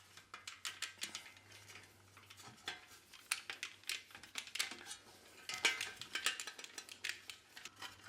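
Irregular small metallic clicks and clinks as the two 5/16 nuts are worked off the studs holding a Broan bath fan motor to its sheet-metal housing, with the wrench, nuts and metal parts knocking together.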